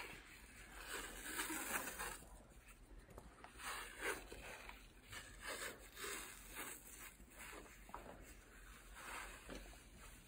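Elastic athletic tape being pulled off its roll and pressed around a wrapped shoulder: faint, irregular rasps and rustles of tape and fabric.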